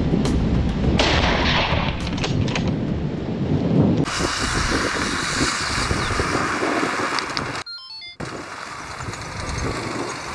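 Heavy low rumbling with a few sharp cracks, then a cut to the steady noise of a pickup truck driving along a dirt track, broken by a brief dropout.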